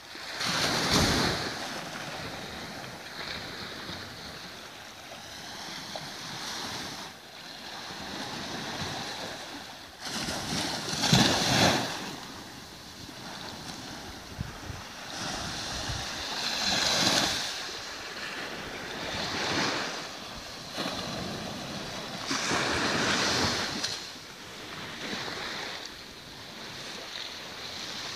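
Small waves breaking and washing up on a sandy shore, the surf swelling and fading every few seconds. Wind buffets the microphone now and then, hardest about eleven seconds in.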